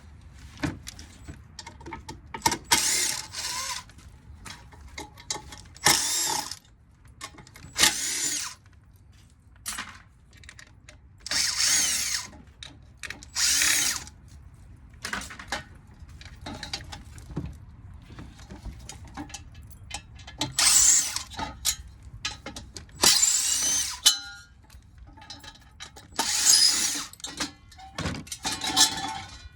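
A power drill-driver runs in short bursts of about a second, about eight times, with clicks and knocks between them, as screws are driven out of a ceiling-fan motor's housing.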